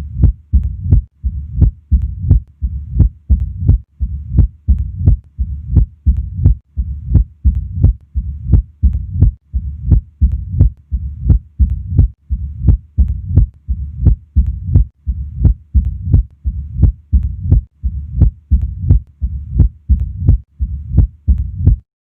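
Heart sounds of mitral stenosis heard at the apex through a stethoscope: a steady rhythm of sharp, snapping heart sounds, each followed by a low-pitched rumbling diastolic murmur. The recording cuts off shortly before the end.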